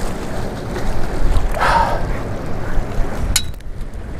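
Wind buffeting the microphone over choppy lake waves washing against a concrete pier. There is a short louder burst of noise about one and a half seconds in, and a sharp click a little past three seconds.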